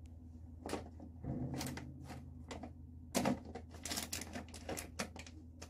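Irregular light clicks and rustles of hands working in the hair, pushing pins into a clip-in ponytail, over a faint steady low hum.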